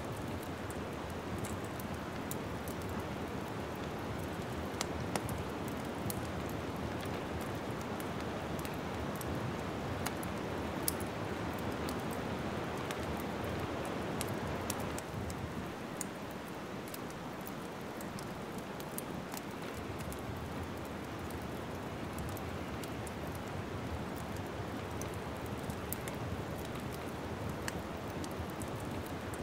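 Wood fire burning in a fireplace: a steady hiss of flames with scattered sharp crackles and pops from the burning logs, a few louder pops about five and eleven seconds in.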